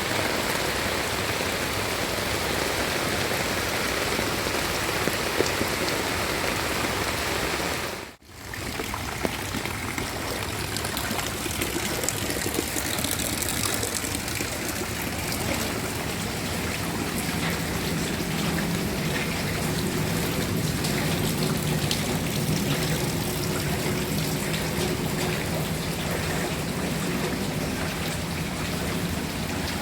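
Steady rain falling, an even hiss of drops on surfaces that cuts out for a moment about eight seconds in. A faint low hum joins under the rain in the second half.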